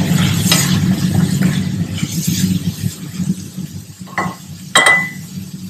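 Potato filling frying in a pan, stirred and scraped in repeated strokes over a steady low hum. Two sharp metallic clinks come about four and five seconds in.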